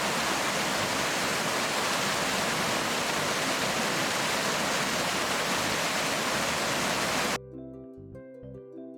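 Steady rush of water from a gorge waterfall or stream. It cuts off suddenly near the end and soft instrumental music of held, bell-like notes takes over.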